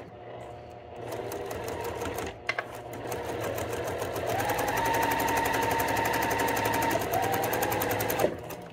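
Electric sewing machine stitching a straight seam through fabric and a paper foundation: it starts slowly, its motor whine rises as it speeds up about halfway through, then it slows and stops near the end.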